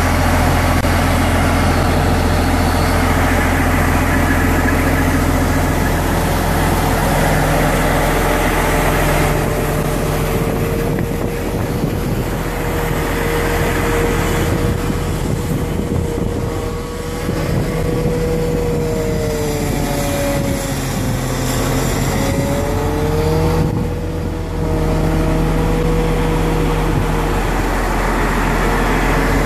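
DOK-ING MV-10 mine clearance vehicle's diesel engine running steadily, with a steady whine above it that wavers in pitch a little past halfway.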